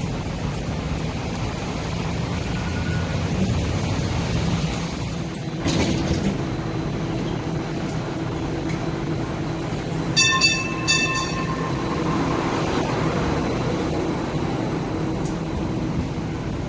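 Hong Kong Light Rail Phase 1 light rail vehicle at a station with a steady low hum, and two short pitched electronic tones about ten seconds in.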